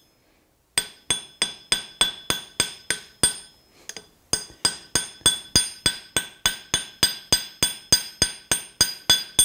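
Light ball-peen hammer rapidly tapping a red-hot rivet on an anvil, slowly working it down into a head to join the bosses of a pair of blacksmith's tongs. The blows come at about three a second and each rings briefly. They start under a second in, with one short pause a little past the middle.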